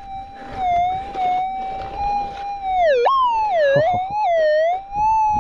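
Minelab GPZ 7000 gold detector's tone, steady for the first half, then from about three seconds in swinging down and back up in pitch again and again as the coil passes over a buried target. The detectorist takes the warbling signal for a mangled gold nugget or a mangled bullet.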